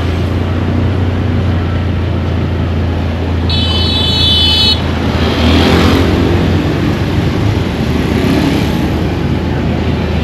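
Road traffic noise: a steady low engine hum with passing vehicles, and a high tone about a second long some three and a half seconds in.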